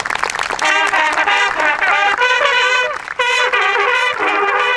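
Signal bugles of a military bugle corps sounding a call of short, detached notes, with applause fading out in the first moment.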